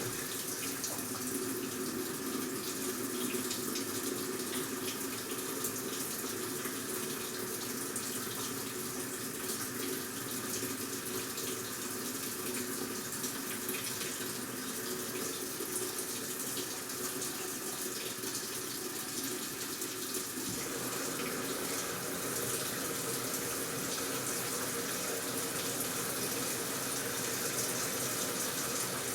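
AQUA top-loading washing machine with water running steadily into the tub as it fills. The sound grows fuller about 20 seconds in.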